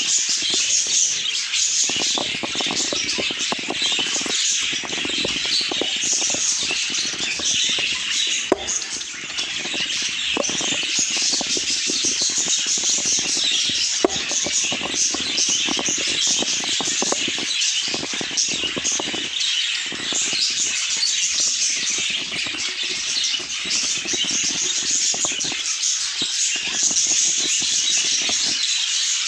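A flock of budgerigars chattering and warbling without a break, many birds at once, with two sharp clicks, one about 8 seconds in and one about 14 seconds in.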